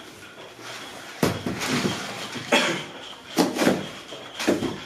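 A block of glued cardboard firework tubes being handled and knocked against the floor and trays: five dull knocks at uneven intervals, the loudest near the middle.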